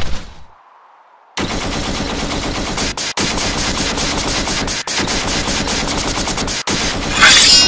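Automatic gunfire sound effect: after a short pause, a long run of rapid machine-gun fire with a few brief breaks, ending in a louder, brighter burst near the end.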